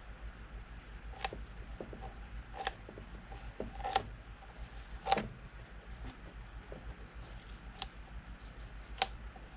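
Light sharp clicks and taps of plastic parts being handled, about one every second or so, over a faint low hum.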